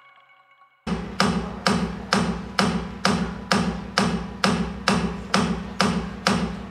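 A music track starts about a second in with a steady, hard percussion beat, about two and a half hits a second, over a low bass.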